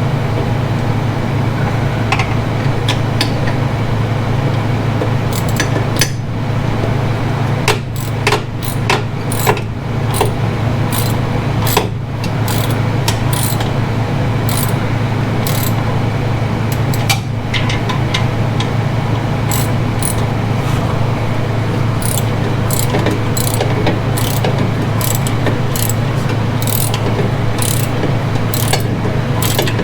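Hand ratchet wrench clicking as the exhaust tailpipe fasteners are screwed down: irregular clicks in the first half, then a steady run of clicks about twice a second, over a constant low hum.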